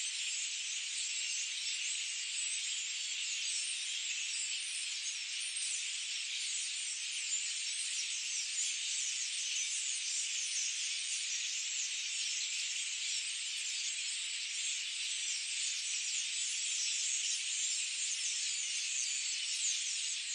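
Dense chorus of many small birds chirping at once, blending into a steady high-pitched twittering with nothing in the low range.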